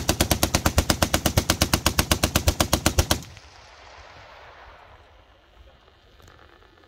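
Vickers .303 water-cooled machine-gun fire: a long sustained burst at an even rate of about eight shots a second. It cuts off abruptly about three seconds in, and the report echoes away over the range for the next two seconds.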